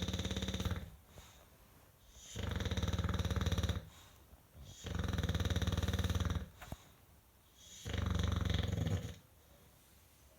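An English bulldog snoring loudly in its sleep: a snore ending just after the start, then three more long snores, each about a second and a half, with quiet pauses between.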